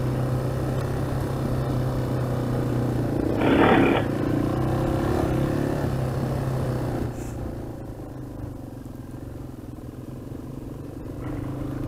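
Dual-sport motorcycle engine running steadily while riding a gravel road, with a brief louder burst about three and a half seconds in. About seven seconds in the engine note quietens and stays lower.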